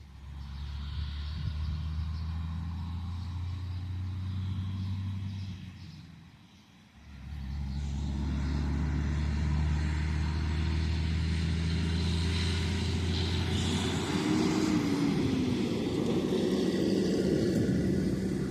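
Engine of heavy harvest machinery running steadily with a low hum. It fades out about six seconds in, then comes back louder with a rushing noise on top.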